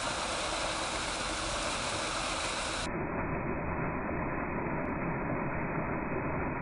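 Rainwater rushing steadily into a street storm drain. It turns duller about three seconds in.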